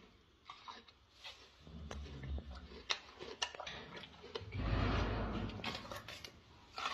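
Gorilla eating a red bell pepper: scattered wet mouth clicks and crunches, with two low rumbling noises, a short one about a second and a half in and a longer, louder one around the middle.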